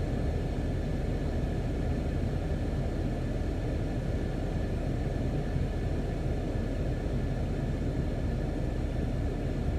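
Combine harvester running steadily in the field: an even low rumble with a faint steady whine above it.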